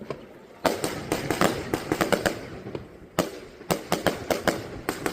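Fireworks going off: a rapid, irregular run of sharp bangs that starts about half a second in.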